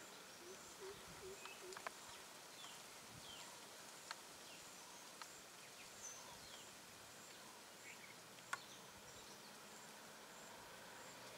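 Near silence: faint outdoor ambience of scattered bird chirps over a high insect note pulsing about twice a second, with a few sharp clicks.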